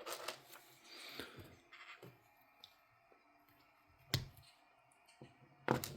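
Plastic Lego pieces being handled and pressed together: a few sharp clicks, loudest near the end, with a short rattle of loose pieces about a second in.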